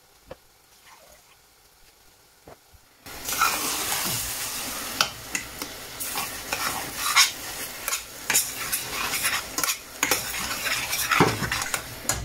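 Minced chicken keema frying in a stainless steel saucepan while a metal spoon stirs it, sizzling with repeated scraping and clinks of the spoon against the pan; the mince is breaking apart as it cooks. It starts suddenly about three seconds in, after a few faint clicks.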